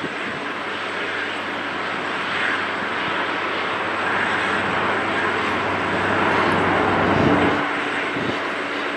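Boeing 777-200LR's GE90 turbofan engines running at taxi power as the airliner rolls past, a steady jet rush that swells a little about seven seconds in. A faint low steady hum joins near the end.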